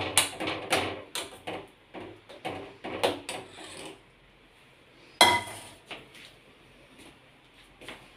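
A spoon stirring and knocking against a stainless steel kadai of thick gravy, a rapid run of clinks for about four seconds. A little after five seconds comes one loud, ringing clang of steel dishware.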